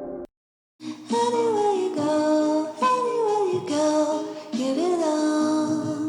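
Background music: a muffled ambient passage cuts off, and after a half-second gap a pop song begins with a sung melody over instrumental backing.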